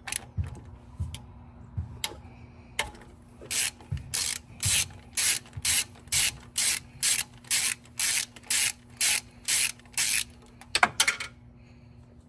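Hand ratchet with a 12 mm socket backing out a bolt on an engine bracket: a few scattered clicks, then steady clicking strokes about two a second as the bolt is spun loose. It ends in a brief clatter near the end, as the loosened bolt drops into the engine bay.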